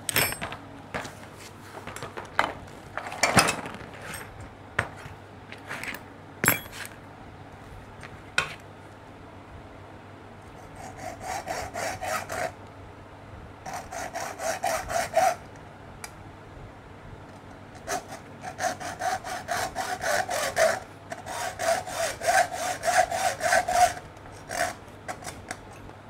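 Hand hacksaw cutting a short piece of air-conditioner tubing. Several sharp knocks and clatters of tools being handled come first, then quick rasping saw strokes in four bursts through the second half.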